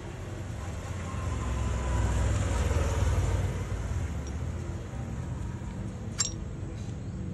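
Low background rumble that swells up and fades back down in the middle, with one sharp click about six seconds in.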